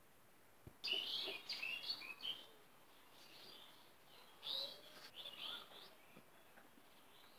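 Birds chirping in two short bursts of quick, high chirps, one about a second in and another around four and a half seconds.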